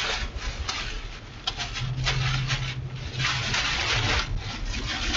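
Strong rear-flank downdraft winds buffeting a moving vehicle, heard from inside: a steady rush of noise with many short gusts and hits against the body.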